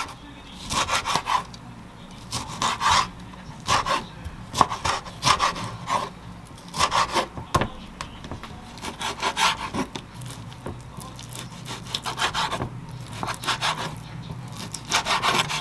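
Kitchen knife cutting through tomato and then raw pork loin on a wooden cutting board: short runs of slicing strokes with the blade knocking on the board, about one run a second.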